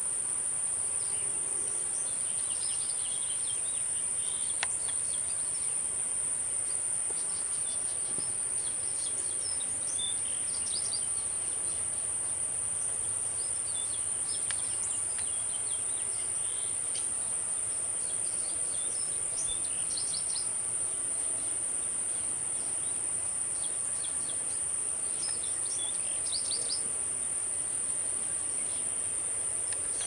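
Steady, high-pitched drone of insects, with short bird chirps scattered throughout.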